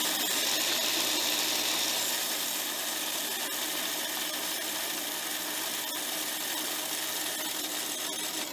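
Electric coin counting machine running steadily as dimes feed through it, its motor whirring with a few faint clicks.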